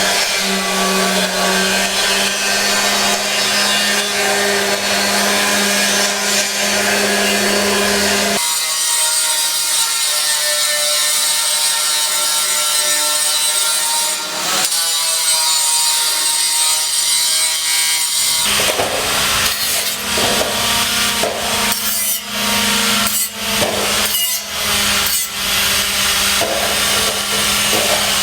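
Electric power tools running and cutting. A steady motor hum sits under a harsh grinding noise, and the sound changes abruptly twice.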